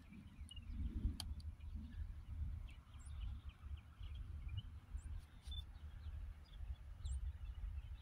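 Scattered short bird chirps over a steady, uneven low rumble.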